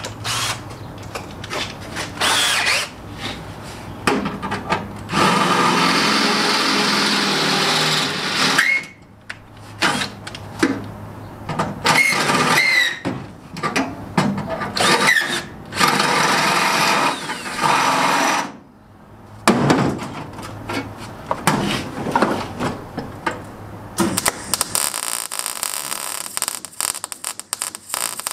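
Cordless drill run in repeated bursts of a few seconds into sheet steel, the bit now and then squealing briefly against the metal. From about 24 seconds in comes the steady crackle of a MIG welder, as the repair panel is welded to the floor.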